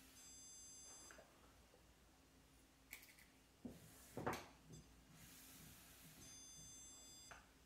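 Handheld electronic stud finder beeping twice, each beep a high tone lasting about a second, one just after the start and one about six seconds in, as it detects the edge of a wall stud. A few soft knocks and taps come in between.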